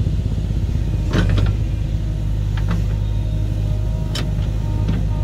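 Heavy diesel engine running steadily with a low drone, with a few short sharp noises over it about a second in, near the middle and about four seconds in.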